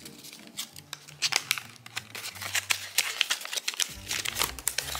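Paper crinkling and rustling in quick, irregular crackles as a small folded note is pulled out and unfolded.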